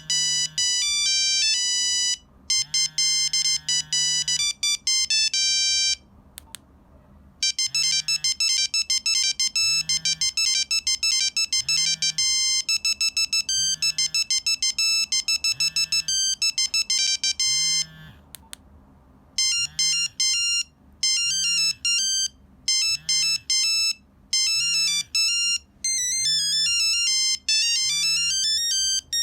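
Nokia 3395 mobile phone playing monophonic ringtone melodies, quick runs of electronic beeps. It plays three different tunes, with short pauses about six and eighteen seconds in.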